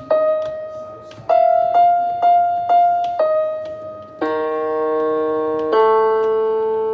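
Piano-sounding keyboard playing a simple line of single struck notes, several repeated on the same pitch about half a second apart, then two longer held chords near the end.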